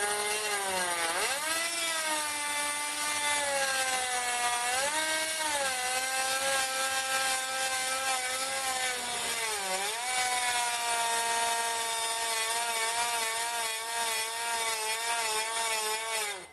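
Electric drill driving a step drill bit into about 3 mm aluminium sheet: a loud, steady whining screech whose pitch sags three times under load and recovers, then cuts off suddenly. The aluminium is galling and gumming up the bit's tip, so the bit deforms the sheet rather than cutting it cleanly.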